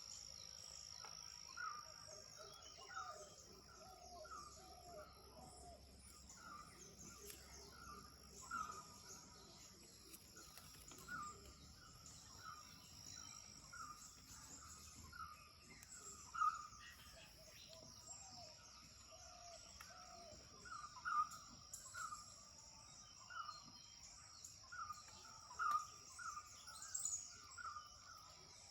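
Dawn birdsong: one bird repeats a short call about once a second, another gives runs of lower notes twice, over a steady high-pitched whine.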